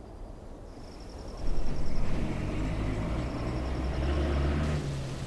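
Diesel bus engine approaching and running, coming in sharply about a second and a half in and holding a steady low drone; near the end the engine note falls away and a hiss comes in.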